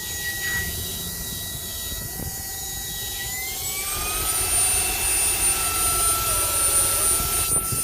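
Dibea cordless stick vacuum's brushless motor running with a steady whine. A little over three seconds in, the whine rises in pitch over about a second and the motor gets louder, stepping up to a higher suction setting.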